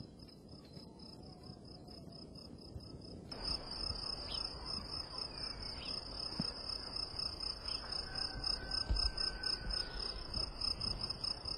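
Crickets chirping in a steady, pulsing high trill, which grows louder about three seconds in.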